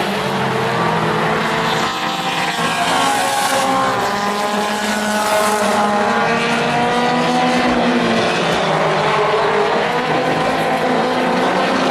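Mini stock race cars' engines running hard in a race, several at once, their pitches gliding up and down as the cars accelerate and back off around the oval.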